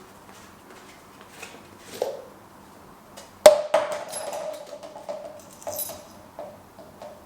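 A sharp knock about three and a half seconds in, followed by a clear ringing tone that dies away slowly, with a few lighter knocks while it rings, during hands-on bicycle assembly work.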